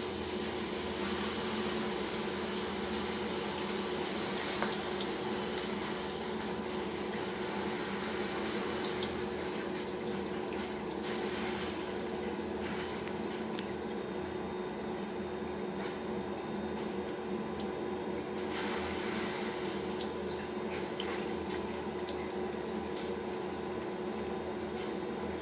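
Water in a turtle tank sloshing and trickling in a few short spells, over a steady electrical hum from the tank equipment.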